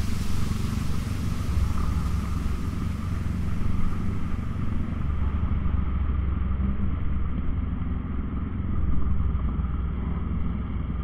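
Motorcycle engine running at low road speed, a steady low rumble with wind and road noise, swelling briefly about four and nine seconds in.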